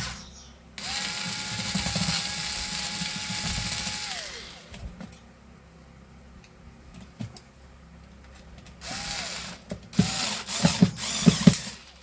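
Cordless electric screwdriver driving screws into a hair dryer's plastic housing. Its motor runs steadily for about three and a half seconds and winds down. It runs briefly again near the end, among a few sharp clicks.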